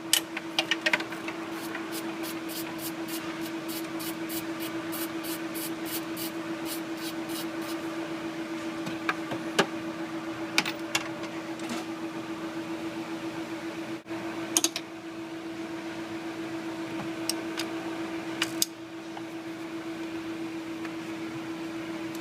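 A steady mechanical hum on one pitch, with a run of evenly spaced clicks at about three a second through the first several seconds and a few scattered clicks and knocks later.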